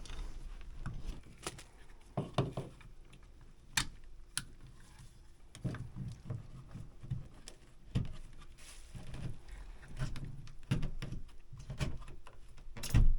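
Hands working with tools and parts: scattered clicks, knocks and handling rustle, with one louder thump right at the end.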